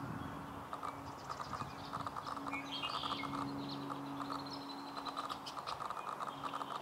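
Wood duck ducklings and hen dabbling for seeds at the water's surface, their bills making repeated runs of soft, rapid clicking, with a few high chirps about three seconds in. A low steady hum sits underneath from about two to five and a half seconds in.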